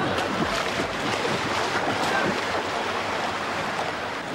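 Swimming-pool water splashing and sloshing as a swimmer churns through it, a steady wash of irregular splashes.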